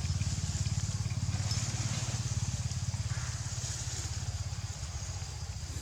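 An engine running with a fast, even low throb, slowly getting quieter.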